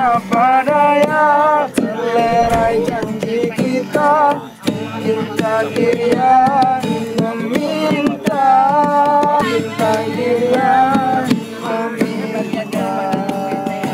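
Acoustic guitar strummed as an accompaniment while voices sing a song along with it.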